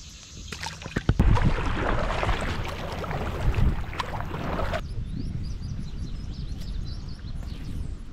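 Kayak paddling: paddle strokes splashing in the water with wind rumbling on the microphone, cutting off abruptly about five seconds in. A quieter stretch of river ambience follows, with birds chirping.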